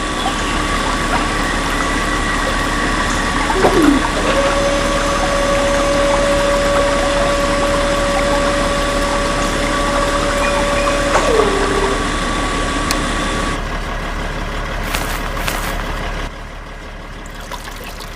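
Small DC motors of a toy borewell-and-pump model whining steadily over the rush of water driven by a mini submersible pump. One motor's whine drops in pitch and settles about four seconds in, then drops away about eleven seconds in.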